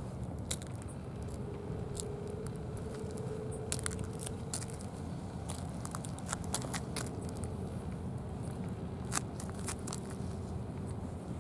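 A steady low outdoor rumble with a faint steady hum in two stretches, broken by scattered sharp clicks and crackles, the loudest about nine seconds in.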